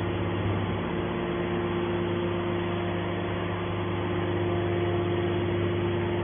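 Hydraulic scrap-metal baler running: a steady, even machine hum with constant low tones and no pauses.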